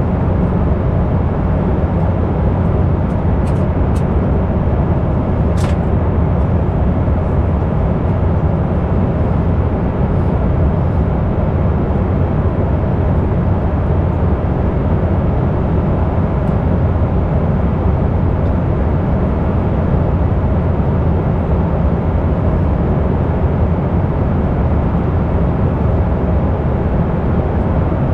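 Steady low cabin drone of an Embraer E195 airliner in flight: its twin GE CF34-10E turbofans and the airflow, heard from inside the cabin. A few faint clicks come around four to six seconds in.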